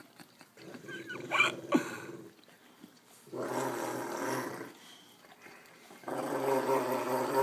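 Rottweiler–Newfoundland mix dog growling in three long, low bouts, the last starting about six seconds in, with a couple of brief higher whines in the first bout. It is a happy, excited growl of affection, not aggression.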